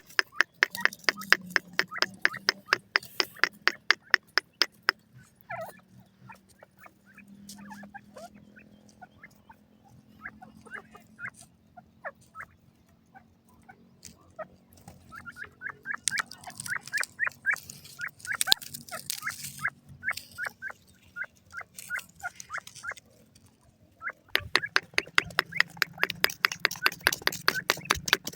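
Game bird chicks calling: rapid runs of short peeps, several a second, thick in the first few seconds and again near the end, with sparser calls in between.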